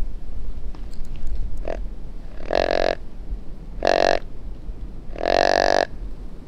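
Deer grunt call blown by a hunter: three loud, low buck grunts about a second and a half apart, the last the longest, after a short faint one. The call is meant to draw a buck toward the hunters.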